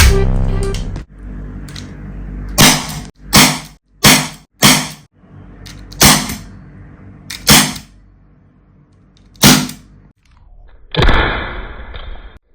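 Dan Wesson 2.5-inch CO2 BB revolver firing, about seven sharp pops at uneven intervals, followed near the end by a longer noisy rush lasting over a second.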